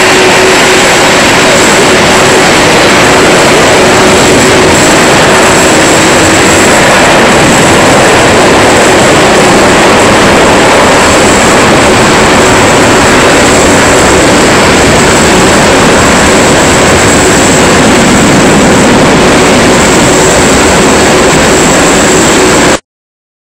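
Boeing 747-200 freighter's four jet engines running at high power on the takeoff roll, very loud and steady, cutting off abruptly near the end.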